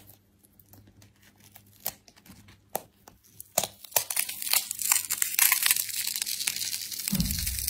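Whole green-skinned sweet melon being torn open by hand: scattered sharp cracks as the rind starts to split, then about three seconds of continuous crackling and tearing as the rind and flesh rip apart, with a dull low bump near the end.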